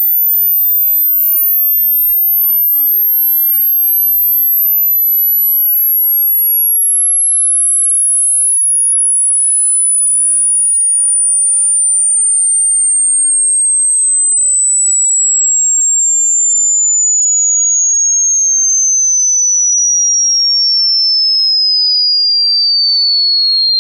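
Hearing-test pure sine tone sliding slowly and smoothly down in pitch, from a very high, near-inaudible whine to a high whistle, at a steady level.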